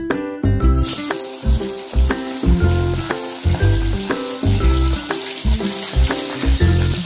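Whole small charapona fish sizzling in hot oil in an aluminium wok. The sizzle starts suddenly about a second in as the fish goes into the oil, then carries on as a steady hiss. Background music with a rhythmic beat plays throughout.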